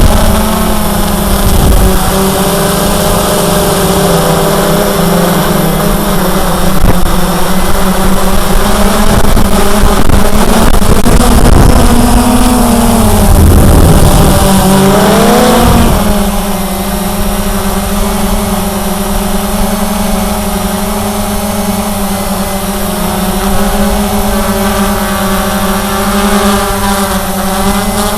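Cheerson CX-20 quadcopter's brushless motors and propellers humming steadily, heard close up over a hiss of rushing air. About halfway through the pitch sags, then swings back up and holds steady.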